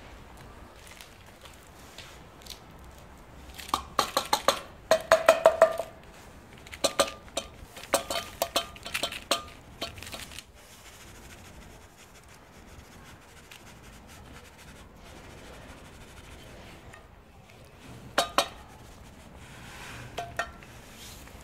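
Metal clinking and scraping from a tin can of cat food on a concrete floor. The clinks come in a busy spell from about four seconds in to ten, then a few more near the end.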